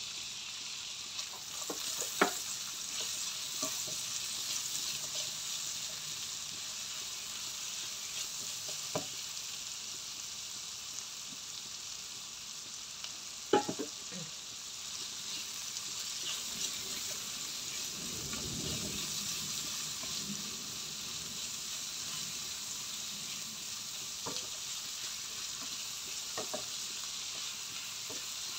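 Sliced shallots, spring onion, garlic and ginger sizzling in oil in a frying pan, stirred with a silicone spatula, with a few sharp knocks of the spatula on the pan, the loudest about two seconds in and just past the middle.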